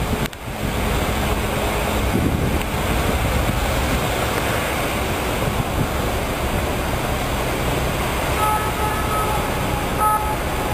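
Steady wind buffeting the microphone over a low, constant engine rumble, with a few brief high tones near the end.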